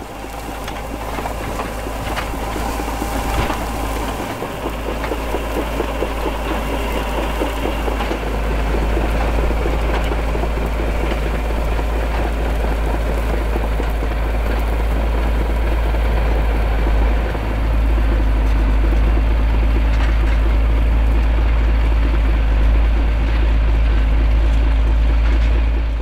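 The 1979 Caterpillar D6D crawler's 3306T turbocharged six-cylinder diesel working under load as it pulls a trailed V-Form subsoiler through stubble. The sound grows louder over the first several seconds and then holds steady.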